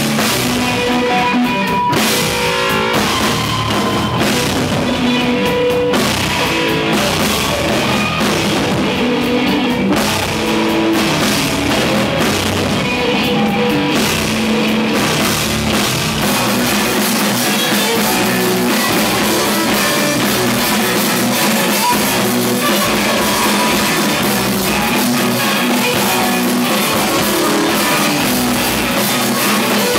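Rock band playing loud instrumental rock: electric guitar driven through effects pedals over a full drum kit, dense and continuous.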